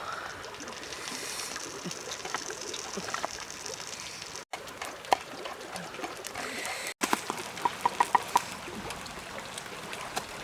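Water sloshing and trickling, with scattered light knocks and a quick run of about six clicks a little after the middle. The sound cuts out briefly twice.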